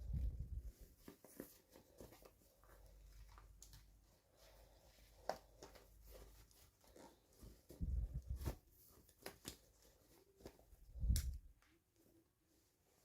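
Hands handling and opening toy packaging: scattered rustles, crinkles and small clicks, with a few soft thumps at the start, about eight seconds in and about eleven seconds in.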